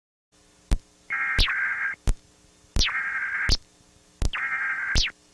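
Emergency Alert System SAME header: three bursts of digital data tones, each just under a second with about a second's pause between, encoding a severe thunderstorm warning. Sharp clicks and brief falling chirps mark the edges of the bursts.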